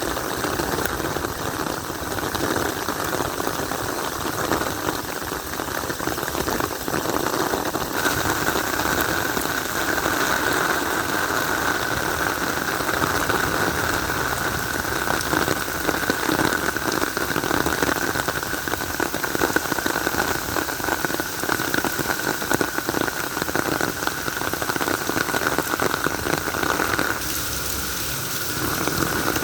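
Rain falling steadily in a dense, even patter. A faint steady whine joins about eight seconds in and stops a couple of seconds before the end.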